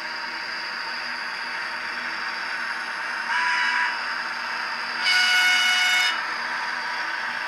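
Sound decoder of an ACME E444R model electric locomotive playing its steady running sound through the model's small speaker, with a short horn toot about three seconds in and a louder, one-second horn blast about five seconds in.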